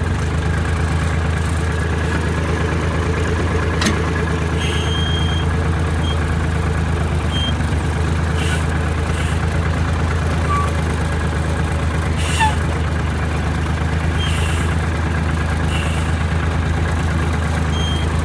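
Sawmill hydraulic pump kicking on and running steadily under load along with the engine, a loud low hum with a fast even pulse, as the log lift strains to raise an oversized log; the owner suspects something is not right with the hydraulics.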